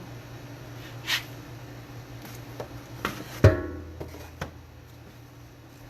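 Handling of a metal bass bridge: a few light clicks, then one loud knock about three and a half seconds in that rings on briefly with a low hum.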